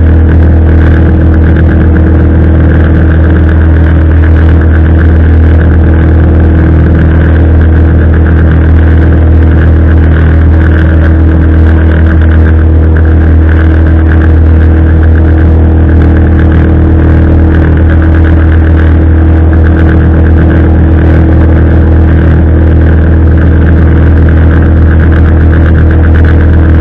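A small motorboat's engine running loud and steady at cruising speed, with no change in pitch or load.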